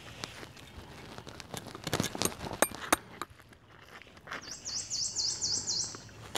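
Rustling and a few sharp clicks from hands working a knife on a skinned cottonmouth carcass, the loudest clicks about two to three seconds in. Past the middle a bird calls a quick series of about seven high notes, each sweeping up and down.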